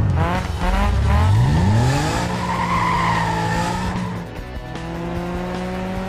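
Cartoon vehicle sound effects: an engine revving, its pitch sweeping down and then up, then tires squealing for a couple of seconds, with background music.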